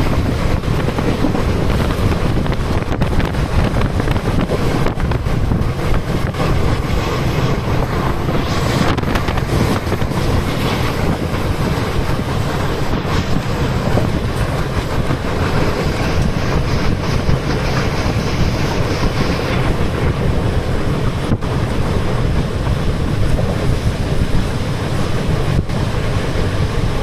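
Moving train, a steady loud rumble of wheels on track with wind on the microphone, and now and then a sharp click.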